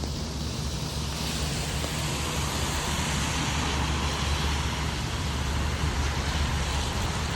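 Road traffic on a rain-soaked road: tyre hiss that swells over the first couple of seconds and holds, over a steady low rumble.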